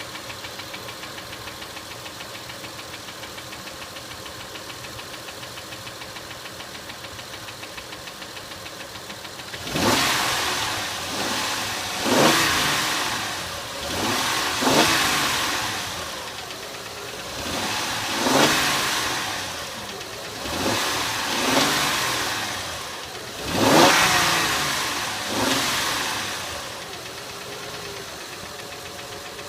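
Acura MDX V6 engine idling with a fast, steady ticking, then revved in about seven short throttle blips before settling back to idle near the end.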